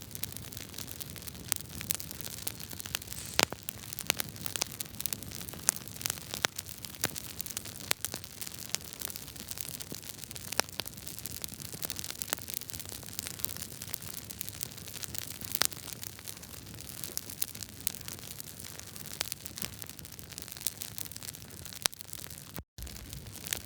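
Wood fire crackling in a fireplace: a steady hiss with frequent, irregular sharp pops and snaps from the burning logs. About a second before the end, the sound cuts out for a moment.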